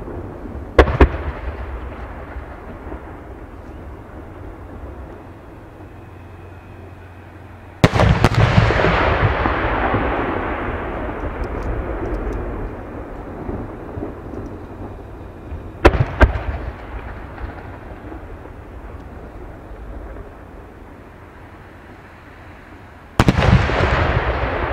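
Japanese aerial firework shells bursting in the sky. There are sharp bangs about a second in and again past the middle, and two heavier bursts, each followed by a long tail of rumble and hiss that fades over several seconds.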